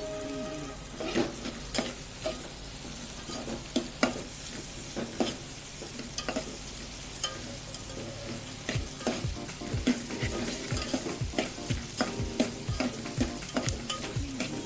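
A spoon stirring and scraping chicken and onions frying in a steel pot, with a light sizzle underneath. Scattered clinks of the spoon against the pot come faster in the second half, about three a second.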